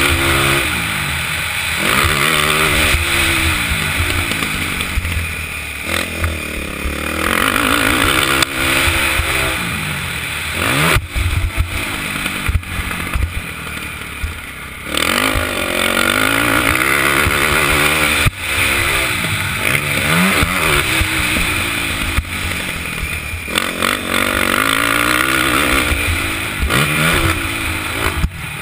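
KTM 450 SX quad's single-cylinder four-stroke engine revving up and down over and over as it is ridden hard. The throttle is shut off for a few seconds around the middle. A few sharp knocks come through.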